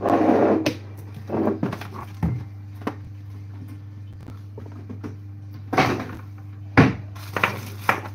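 Kitchen handling sounds: a string of knocks and clatters, one sharp knock among them, over a steady low hum.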